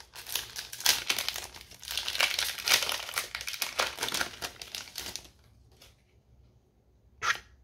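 Shiny foil booster-pack wrapper being ripped open, a dense run of crinkling and tearing crackles that stops about five seconds in.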